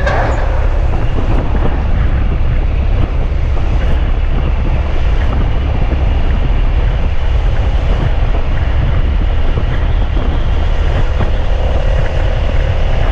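Heavy wind buffeting on the microphone over a Suzuki Gladius motorcycle's 645cc V-twin running at road speed.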